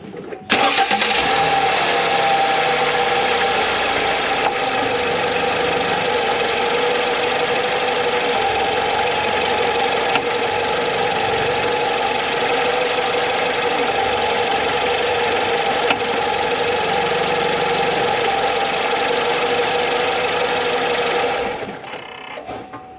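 A motor running steadily and loudly, starting abruptly about half a second in and stopping near the end.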